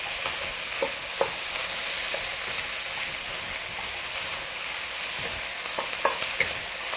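Diced chicken and vegetables sizzling in a hot oiled wok as they are stir-fried with a wooden spatula, with a few light clicks and scrapes of the spatula against the wok.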